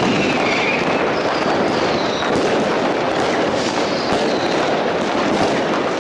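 Recorded fireworks barrage: many bangs and crackles merging into a steady din, with a few faint whistles that fall in pitch.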